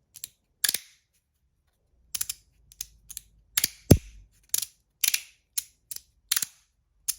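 3D-printed magnetic slider fidget being slid back and forth, its pieces snapping together with sharp clicks, about fifteen at irregular spacing, some in quick pairs. The loudest snap, about four seconds in, carries a dull knock.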